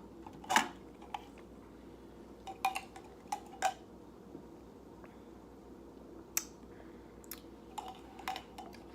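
Scattered light clicks and clinks of a metal drinking straw against a soda can, about ten short taps with the loudest about half a second in.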